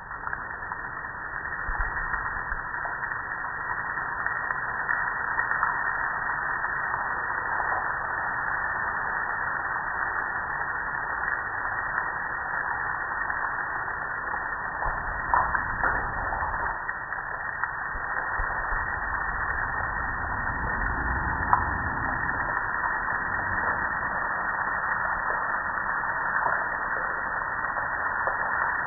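Water from a garden hose spray nozzle hitting the metal hood and cabinet of a gas grill: a steady hissing spray with a few sharp taps partway through.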